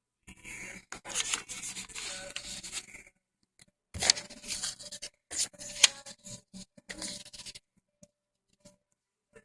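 Sheets of paper rustling and sliding as they are handled with a stapler, in two stretches, the second with a few sharp clicks.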